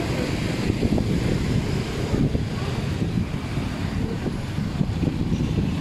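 Steady street traffic: cars and motorcycles running along the road close by.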